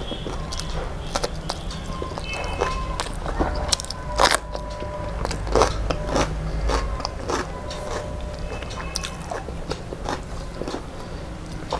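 A person chewing and crunching food close to the microphone: irregular wet clicks and crackles of a mouthful being eaten, loudest a little past the middle.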